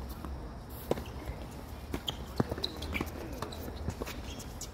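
Tennis ball being struck by rackets and bouncing on the court during a rally: short sharp pops, the loudest about a second in and again about a second and a half later, with lighter knocks between.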